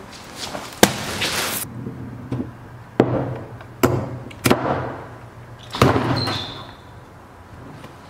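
Hard strikes with a small handheld keychain striking tool smashing a watermelon. There are about five sharp hits over five seconds, each followed by a wet, crunching splatter.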